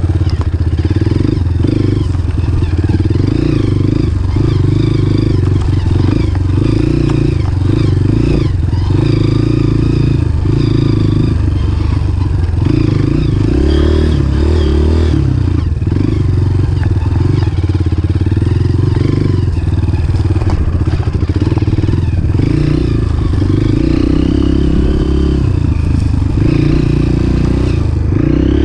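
Dirt bike engine running loud and close throughout, its pitch rising and falling as the throttle changes.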